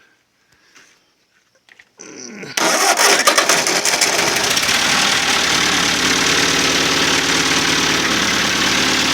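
1951 Ford 8N tractor's four-cylinder flathead engine being cranked and catching about two seconds in, running rough for a second or so, then settling into a steady idle. It starts after a carburetor and distributor clean and a repaired distributor lead.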